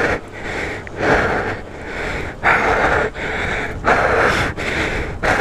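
A man breathing heavily and rhythmically while pedaling an e-bike uphill with little or no motor help: loud breaths out alternate with softer breaths in, about one full breath every second and a half.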